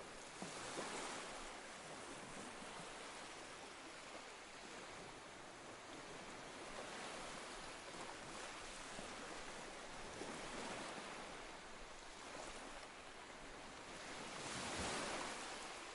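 Ocean waves washing on a shore: a steady soft surf hiss that swells and eases slowly, building to its strongest wash near the end.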